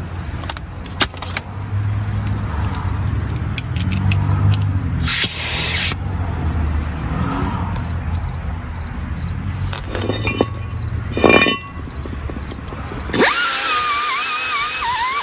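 Angle grinder with an abrasive wheel running in short spells, scrubbing rust off the inside surface of a brake rotor, with clicks of handling between. About 13 seconds in, music with a steady hiss comes in.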